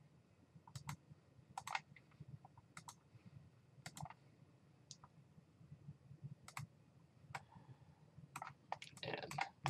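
Computer mouse clicks, faint and scattered about a second apart, coming quicker near the end, over a faint low hum.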